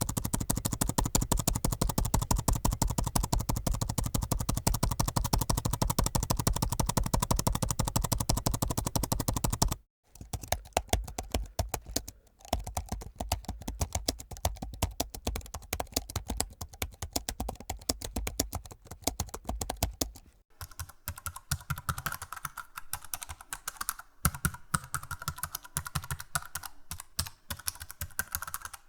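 Rapid typing on a computer keyboard, a dense run of fast key clicks. The typing sound changes abruptly about ten seconds in and again about twenty seconds in, as one typing clip gives way to another.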